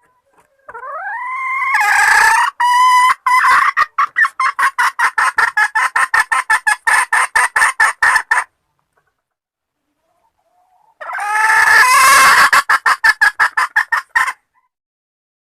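Junglefowl hen calling: a note rising in pitch that breaks into a long, fast run of clucks, about eight a second, then a second, shorter bout a few seconds later. This is the hen's call asking to mate.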